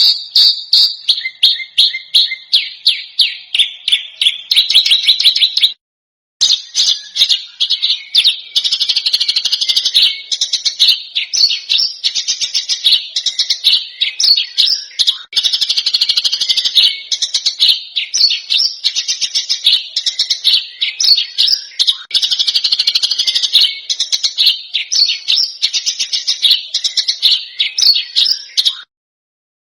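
Recorded songbird song: fast strings of sharp, harsh chattering notes, a 'masteran' tutor recording for competition songbirds. A short series of rapid notes breaks off for a moment about six seconds in, then dense continuous song resumes and cuts off suddenly near the end.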